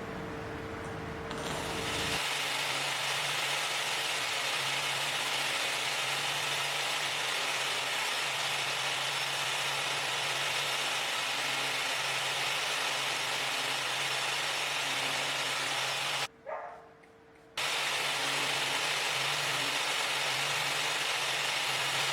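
A power tool running steadily with a hissy, high-pitched noise. It starts about two seconds in, stops abruptly for about a second near the end, then runs on.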